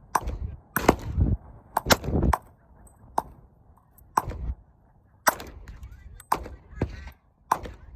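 A string of gunshots: about ten sharp reports at irregular intervals, roughly one a second, some with a short echo after them.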